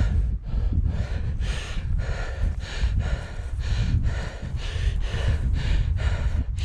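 A man breathing hard and fast, about two to three breaths a second, over a low steady rumble.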